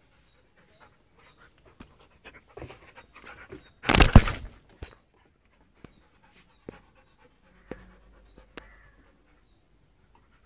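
Six-month-old Doberman puppy panting and sniffing. One loud, short blast of noise comes about four seconds in, and a few sharp clicks follow later.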